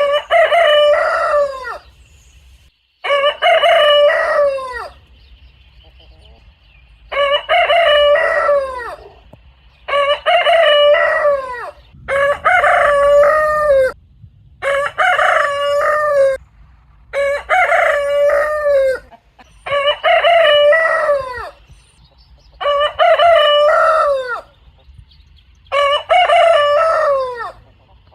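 Rooster crowing over and over: about ten full cock-a-doodle-doo crows, each nearly two seconds long with a falling end, coming one after another with short pauses between.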